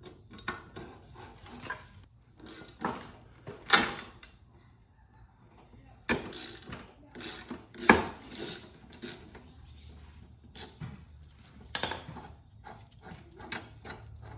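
Ratchet wrench clicking and irregular metal knocks as the blade bolt of a Toro Recycler push mower is undone to remove the worn blade.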